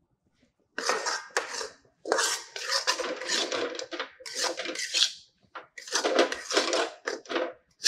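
Metal spatula scraping and stirring a dry, crumbly flour-and-ghee mixture around an aluminium kadhai as the halwa flour is roasted. It starts about a second in and comes in spells of scraping strokes with short pauses between them.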